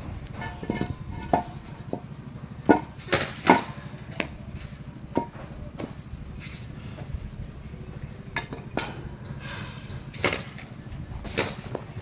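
Irregular sharp knocks and clanks of construction work on metal and wood, about ten separate strikes spread unevenly, a few with a short metallic ring, over a steady low rumble.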